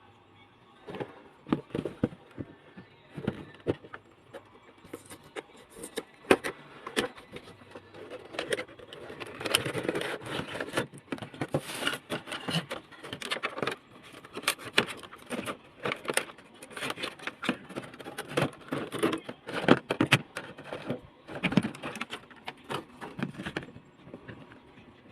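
An action figure's packaging being handled and opened by hand: irregular rustling and crinkling with many sharp clicks and scrapes of plastic and cardboard.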